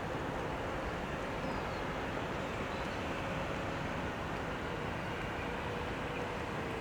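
Steady engine rumble from passing motor traffic or boats, with a faint steady hum.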